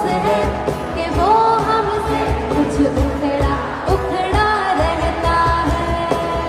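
South Asian pop song: a singer's voice gliding and holding notes over a steady beat.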